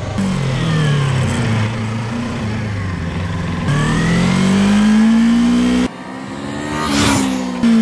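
Motorcycle engine revving up and down as the bike is ridden, its pitch rising and falling with sudden jumps where the sound is cut. About six seconds in it drops away and builds again, then the bike passes close by with a brief rush of noise. The uploader says the engine runs on hydrogen–oxygen gas from an onboard water electrolyser.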